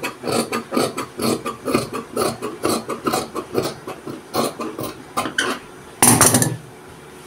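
Large dressmaking shears cutting through printed shirt fabric, the blades snipping in a run of short, sharp clicks about three a second. A brief, louder scraping rustle comes about six seconds in.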